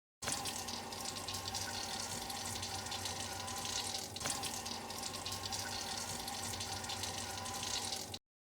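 Steady rushing noise of running water, like a tap running. It starts and cuts off abruptly, with a brief break about four seconds in.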